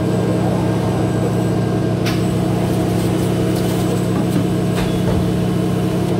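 Polar 115X hydraulic guillotine paper cutter running steadily with a low motor hum between cuts, while a stack of paper is slid across its steel table, with brief paper swishes about two and five seconds in.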